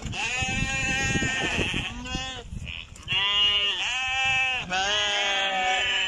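Goats bleating, about five drawn-out, wavering bleats, some overlapping, the strongest in the second half.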